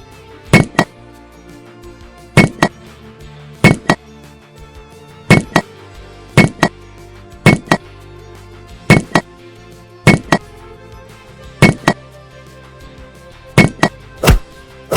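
Steady background music with repeated sharp knocks, mostly in pairs about a quarter second apart, recurring every second or two at uneven intervals.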